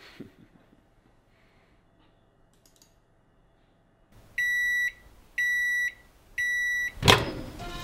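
Electronic alarm beeping three times, about one high, steady beep a second, starting about four seconds in after near silence. A sudden loud sound breaks in near the end.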